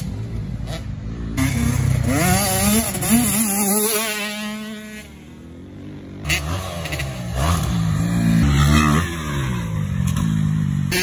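Dirt bike engines revving up and down as they ride past, the pitch climbing with each burst of throttle and dropping between them; the sound fades for a moment about halfway through, then comes back.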